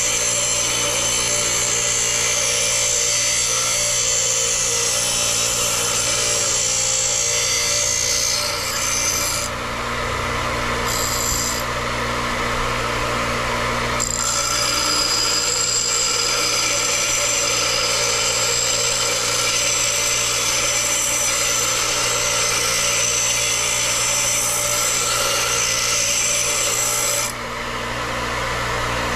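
Bench grinder running with a small steel tab pressed against the wheel, rounding its corners: a steady motor hum under a harsh grinding hiss. The grinding lets up twice, around ten and twelve seconds in, and stops near the end while the wheel keeps spinning.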